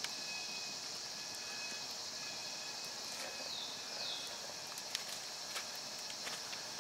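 Forest ambience: a steady high-pitched drone of insects, with two short falling calls about three to four seconds in and scattered light clicks.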